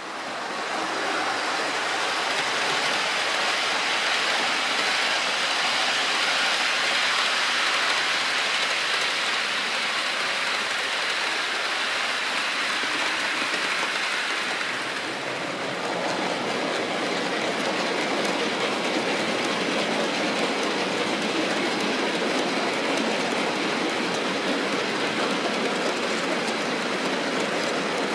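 OO gauge model freight train running on the track: a steady rushing clatter of wagon wheels on the rails. It turns lower in tone about halfway through.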